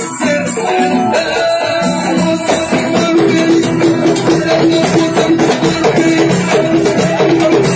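Live Moroccan Aissawa (Issawa) music played loud: held melodic notes over rhythmic hand percussion and rattling. The percussion grows denser and busier about three seconds in.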